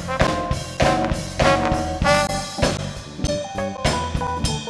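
Live band playing an upbeat groove: a drum kit keeping a steady beat under electric bass, keyboard and brass horns.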